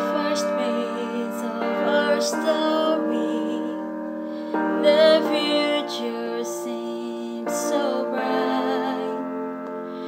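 Slow piano backing music: sustained chords that change every second or two.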